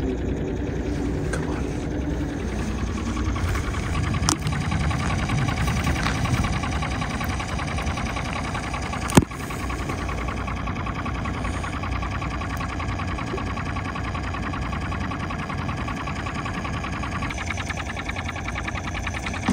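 A small engine running steadily at an even pace, with one sharp click about nine seconds in.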